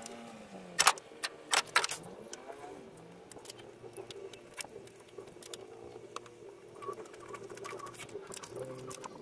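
Metal clicks and clinks of a socket wrench with extension and 15 mm socket working the cylinder head bolts of a GM 2.2 L engine, with a few sharper clacks about a second in and again shortly after, then lighter ticks as the bolt is turned and lifted out.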